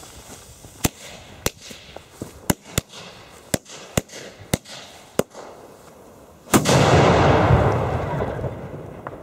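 A run of about eight sharp cracks over four seconds, then a cipolla flash-powder firecracker detonating about six and a half seconds in with a loud blast and a long rumbling tail that fades over about two seconds.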